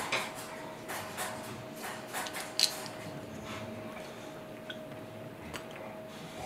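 Small clicks and taps of plastic IV tubing and a syringe being handled at a small glass jar, with one sharper click about two and a half seconds in. A faint steady hum runs underneath.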